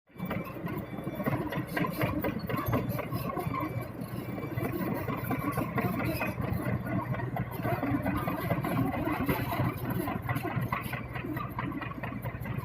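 Diesel engine of a heavy construction machine running steadily, with a dense mechanical clatter over the rumble.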